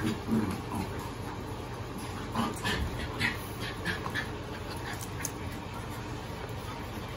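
Seven-week-old puppies playing, with a quick run of short yips and squeaks about two to four seconds in.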